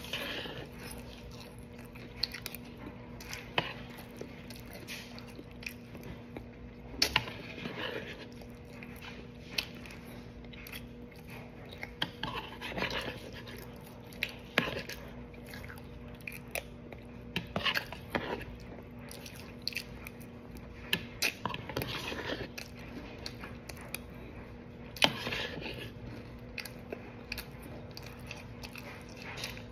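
A person chewing mouthfuls of Cap'n Crunch cereal with Pop-Tart close to the microphone, with irregular crunches and sharp clicks, the loudest about 25 seconds in. A faint steady hum runs underneath.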